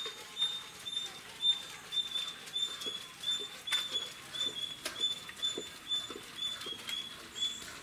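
A small animal or bird chirping: short, high, evenly spaced chirps, about two or three a second, kept up steadily.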